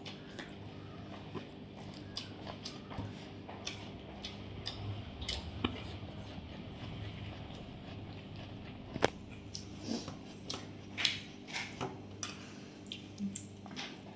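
A person eating fried rice and chili chicken: chewing with scattered small clicks and ticks, the sharpest about nine seconds in and several more soon after. A steady low hum runs underneath.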